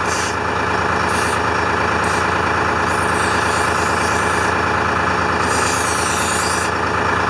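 Detroit Diesel engine of a 1976 International fire truck idling steadily, run to build up air pressure for the air horns. Short bursts of hissing come and go over it, the longest two near the middle and near the end.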